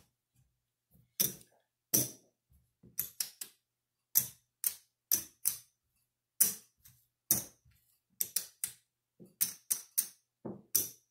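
Casino-style chips clacking together as they are picked up, stacked and set down by hand: scattered sharp clicks, some coming in quick pairs or threes.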